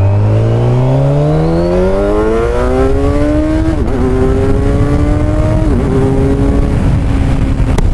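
Kawasaki Ninja 1000SX inline-four, fitted with a Black Widow bend pipe and the stock end can, accelerating hard: the engine note climbs steadily, dips at an upshift about four seconds in and again near six seconds, then pulls on in the higher gear.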